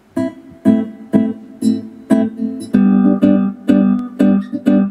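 Yamaha PSR-SX700 arranger keyboard played with its guitar voice: a run of plucked guitar notes from the keys, about two a second at first and quicker after about three seconds.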